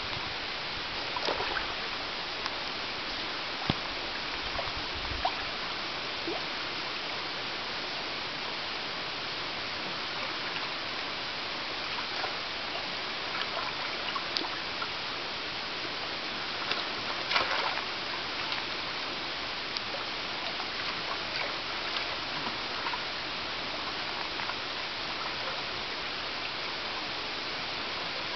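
Shallow stream running steadily over stones, with a few short splashes from European otters playing in the water.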